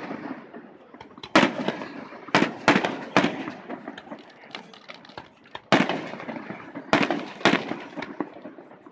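Aerial firework shells bursting: about seven sharp bangs in irregular clusters, each trailing off in echo.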